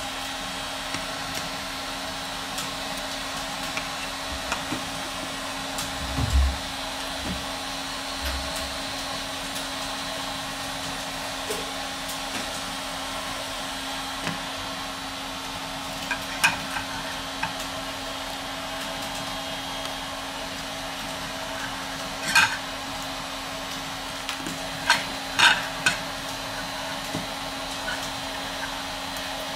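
Small tools clicking and tapping against a smartphone's parts as it is taken apart: a couple of low bumps about six seconds in, then several sharp clicks later on, over a steady background hum.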